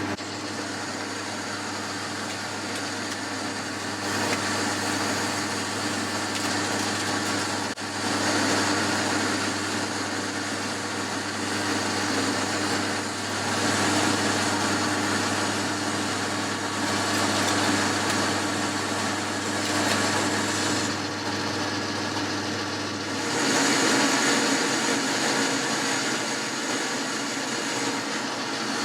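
Boxford metal lathe running while a cutting tool turns down a mild steel bar, a steady machine hum under the hiss of the cut. About 23 seconds in the low hum drops away and a higher hiss grows louder.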